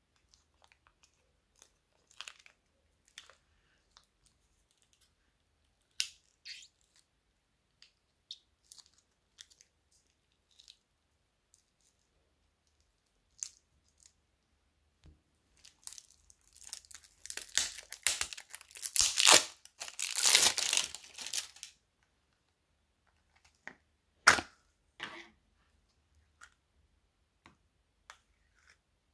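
Thin plastic zip bag rustling in scattered light crinkles and clicks, then crumpled hard in the hand for about six seconds of loud crackling. A single sharp click follows a couple of seconds later.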